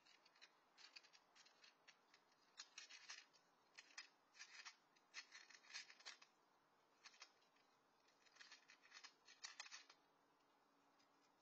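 A cat chewing dry kibble, in runs of quick, crisp crunches with short pauses. The chewing stops about ten seconds in.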